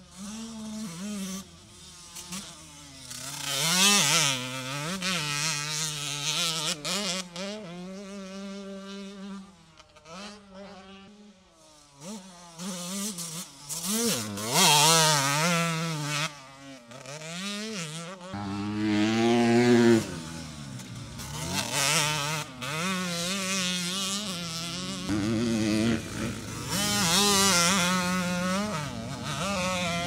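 2003 Suzuki RM125's single-cylinder two-stroke engine being ridden hard, its buzzing note climbing and dropping over and over as the rider opens and closes the throttle, with a quieter stretch about ten seconds in.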